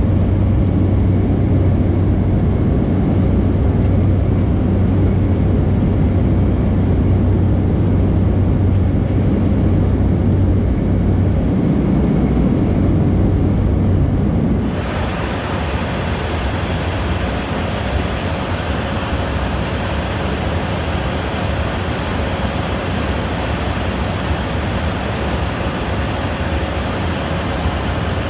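Steady drone of a Cessna Caravan's single PT6A turboprop engine and propeller, heard inside the cabin in flight. About halfway through it changes abruptly to a brighter, hissier rush of engine and air noise, heard from the cockpit on final approach.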